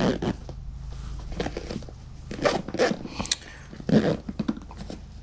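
Zippers on the nylon pouches of a Samurai Tactical backpack being pulled shut: several short, irregular rasps with fabric handling.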